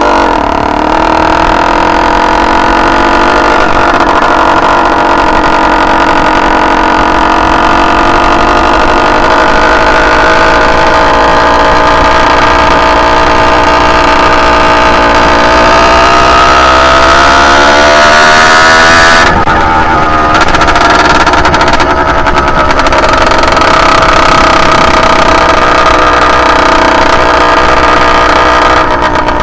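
Motorized bicycle's Minarelli-hybrid two-stroke engine running under way. Its pitch climbs slowly as it pulls to higher revs, drops off abruptly about two-thirds of the way through, then holds steady again. The engine is still in break-in and set up very rich, which the rider says makes it sound choppy and break up at the high end.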